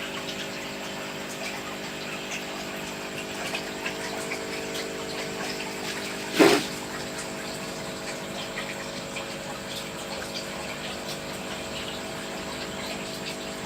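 Aquarium water pump running with a steady hum over water noise. A single short knock comes about six and a half seconds in.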